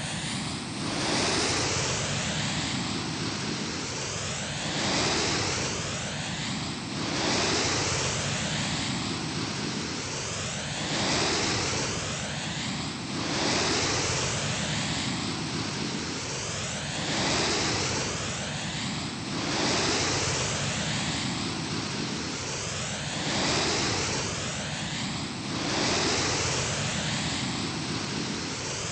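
GEC Mistralaire ceiling fan running, its moving air making a continuous rushing noise that swells and fades every two to four seconds.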